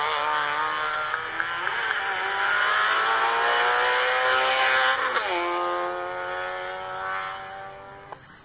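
Peugeot 106 N2 rally car's four-cylinder engine at full throttle, its pitch climbing steadily through a gear, dropping sharply at an upshift about five seconds in, then climbing again. It fades near the end as the car draws away.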